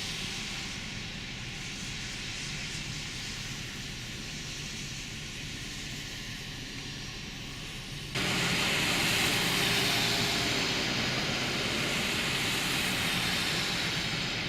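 Steady road and engine noise of a vehicle driving, with a broad hiss and low hum. It steps up suddenly and turns brighter and louder about eight seconds in.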